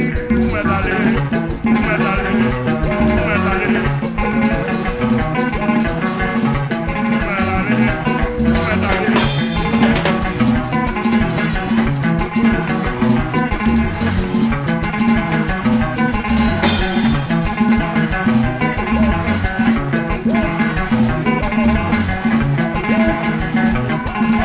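Lively church worship music with guitar and drum kit keeping a steady dance beat.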